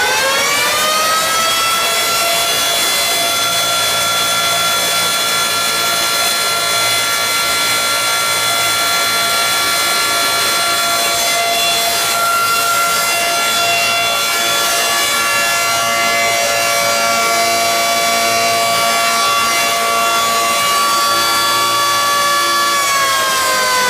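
Civil-defense siren sounding a test. It holds one steady tone at full speed after winding up, then starts to wind down, falling in pitch, near the end.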